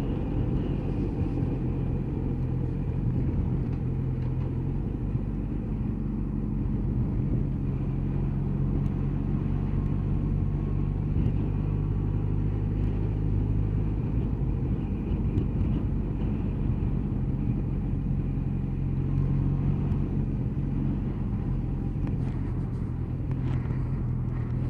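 Motorcycle engine running steadily as the bike is ridden at an easy pace, heard from the bike itself along with road noise. About halfway through the engine note changes for a few seconds, then settles back to a steady note.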